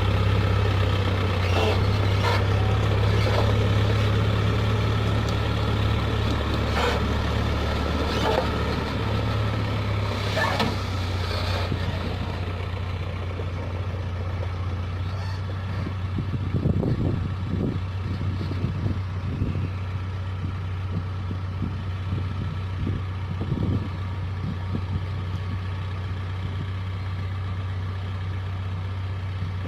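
Case backhoe loader's diesel engine running steadily, with scattered metallic knocks and clanks in the first half and a run of dull thumps past the middle.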